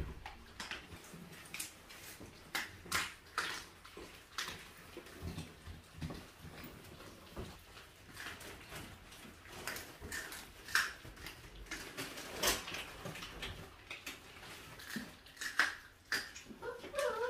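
A dog chewing and gnawing on a chunk of raw meat, making irregular wet clicks and smacks.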